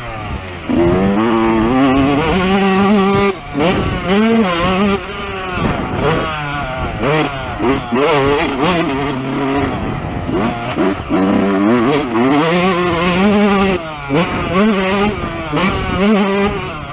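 2019 Yamaha YZ125's two-stroke single-cylinder engine under hard riding, revving up and shutting off again and again, its pitch climbing and dropping many times over.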